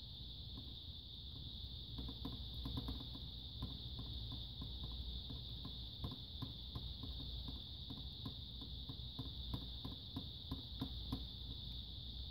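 Faint scrapes and light ticks of a small tool spreading heat sink compound across a laptop's processor on the bare motherboard, over a steady high-pitched whine and low hum in the background.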